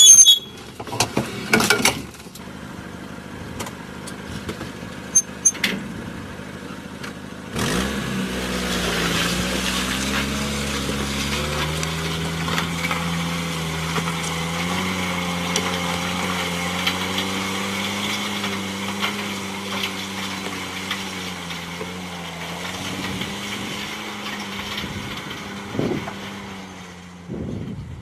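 Sharp metal clanks from a steel plough-hitch lever at the start. About eight seconds in, a car's engine comes up in pitch and then runs steadily under load as the car drags a plough through the soil. It fades near the end as the car moves away.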